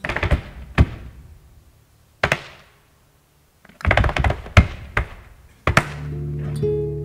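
Flamenco percussion: sharp, loud strikes in irregular groups, a cluster at the start, single strikes about a second and two seconds in, and another cluster around four to five seconds. Near the end a steady low drone sets in and acoustic guitar notes begin.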